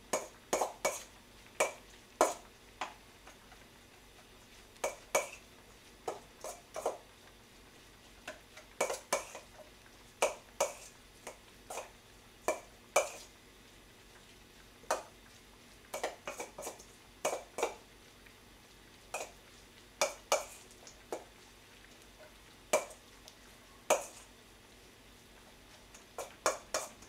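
Stainless steel mixing bowl clinking and ringing as seasoned spinach is tossed and mixed in it: irregular short metallic knocks, a few each second, with brief pauses.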